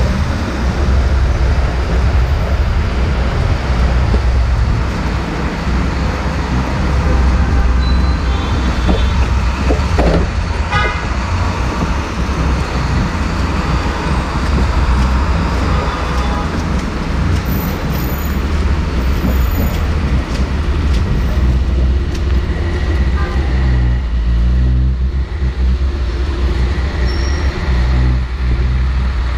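Steady heavy city traffic noise on wet streets, a continuous rumble of engines and tyres, with car horns tooting now and then.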